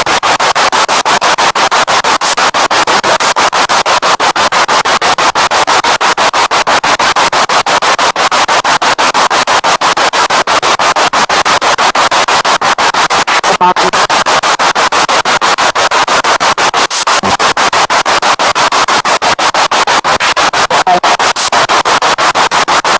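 Spirit box radio sweeping through stations: loud, choppy static broken into rapid, even pulses several times a second, with brief fragments of broadcast sound between them.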